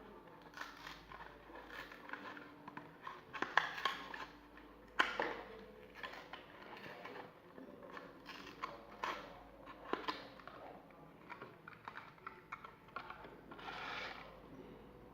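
Small toy packaging being handled and opened: crinkling plastic and cardboard with many small clicks and a few sharp snaps, and a brief rustle near the end.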